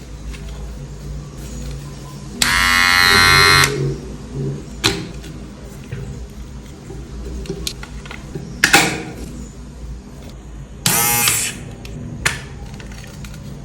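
Philips Series 3000 beard trimmer's motor switched on in two short buzzing runs, the first about a second long and the second half a second near the end. Sharp clicks and knocks come between them as the trimmer is handled.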